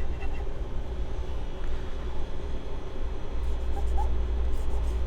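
Steady low background hum, with a few faint light ticks in the second half.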